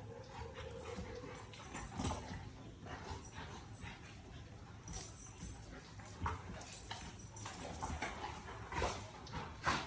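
Dogs moving about, with scattered short knocks and scrapes; the sharpest come about two seconds in and near the end.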